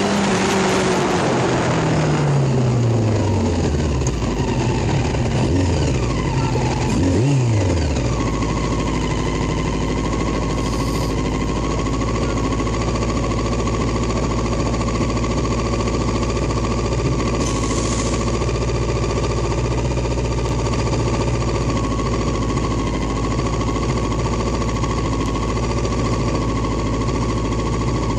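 Vehicle engine slowing, its pitch falling over the first few seconds, with a brief rev about seven seconds in, then idling steadily with a low even drone.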